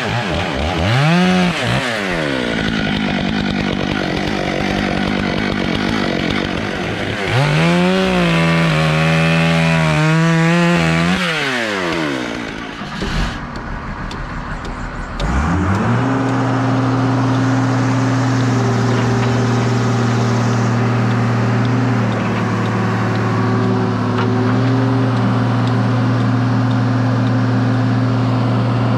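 Stihl MS 661 C two-stroke chainsaw revving up and down and bucking through a log, its pitch dropping under load while cutting, then falling back about twelve seconds in. A few seconds later an engine rises to a steady, even drone that holds for the rest of the time.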